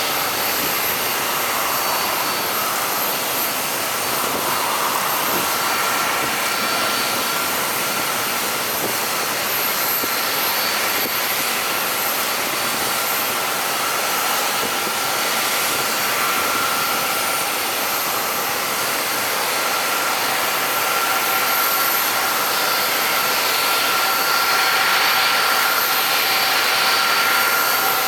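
Jet airliner engines running at low power: a steady rushing noise with a thin high turbine whine that sets in about six seconds in, swelling slightly near the end.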